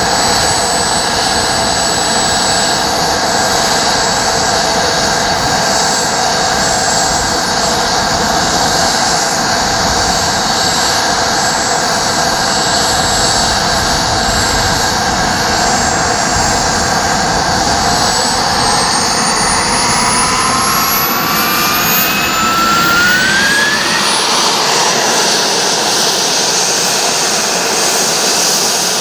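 Miniature gas-turbine engine of a radio-controlled F-16 model jet running with a steady high whine, then spooling up in a rising whine through several seconds before settling at a higher, steady pitch near the end.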